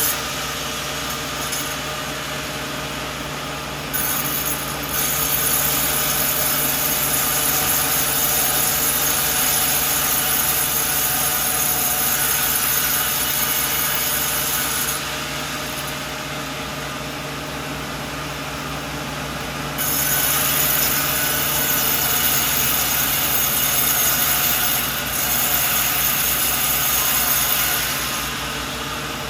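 A sawmill running with a steady machine hum. The saw cuts through a coconut log in two louder, hissier stretches: one from a few seconds in until about halfway, and another from about two-thirds of the way in until near the end. Between and around them it drops back to quieter running.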